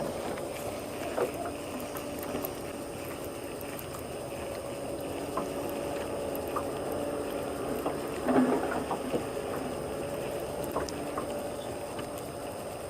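Water sloshing and gurgling against a small fishing boat, with a faint steady hum and a few light clicks. A brief louder splash-like patch comes about eight seconds in.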